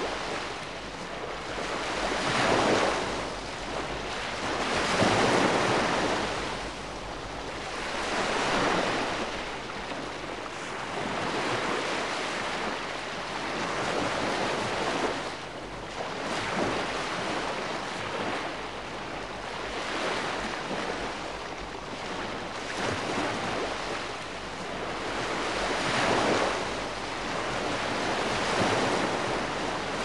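Calm sea washing gently over a shore: small waves surge in and draw back as a steady hiss, swelling and fading about every three seconds.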